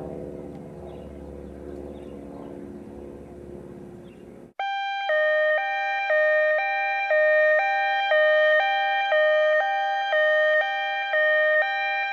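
Low background hum, then about four and a half seconds in an electronic two-tone hi-lo siren starts suddenly, alternating between a high and a low note about twice a second.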